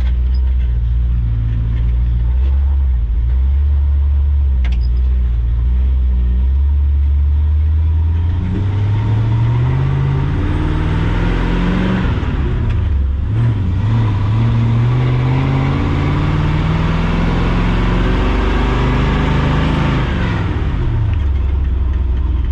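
Chevrolet K30's 6.0-litre Vortec V8 pulling a loaded trailer. It runs steadily at first, then about eight seconds in it accelerates with rising pitch. The pitch drops briefly for a gear change, climbs again through the next gear, and falls away near the end as the throttle is let off.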